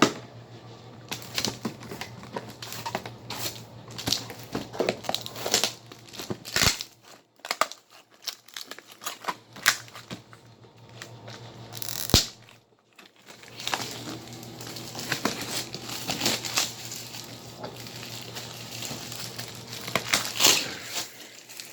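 Packaging of a fireworks assortment box being torn and wrenched open: irregular ripping, crinkling and rustling, with two sharp knocks, the louder one about halfway through.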